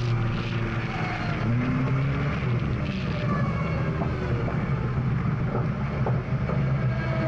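GAZ Volga rally car engine running as the car drives along a dirt track, its note rising and falling with the throttle.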